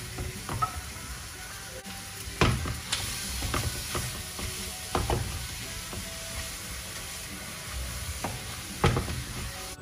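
Canned corned beef and onions sizzling in a frying pan, stirred with a wooden spoon that knocks and scrapes against the pan at irregular intervals, loudest about two and a half seconds in and near the end.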